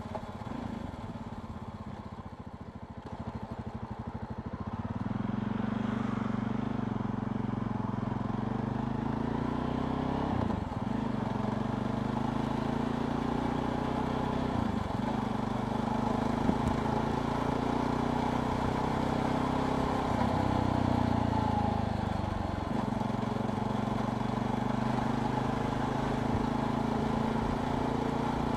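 A JAWA Perak's two-stroke engine running under way. It is low and uneven for the first few seconds, then pulls steadily with brief breaks in the note as the rider changes gear. Near the end it settles to a lower pitch.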